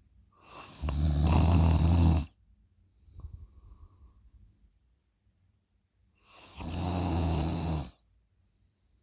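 A person snoring loudly: two long, low snores about five seconds apart, with a softer, breathy exhale between them.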